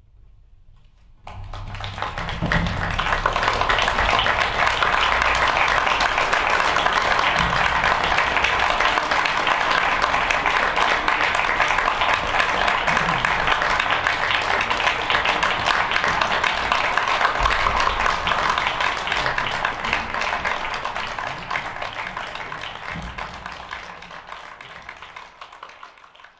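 Audience applauding. The clapping starts suddenly about a second in, right after a short hush at the end of the music, holds steady, and dies away near the end.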